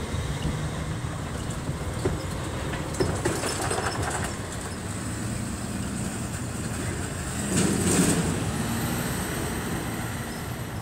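CSX freight train's cars rolling away on the rails, a steady low rumble, with a brief louder rush about eight seconds in.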